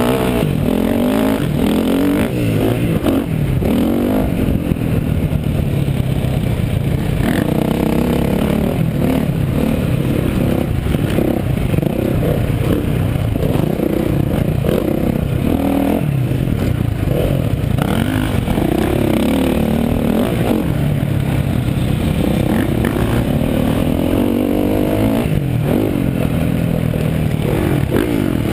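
A KTM dirt bike's engine, revving hard and then easing off again and again as it accelerates, shifts and slows through the track's turns, its pitch rising and falling every few seconds.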